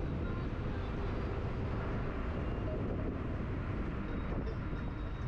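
A car driving along a road: steady low rumble of engine and road noise.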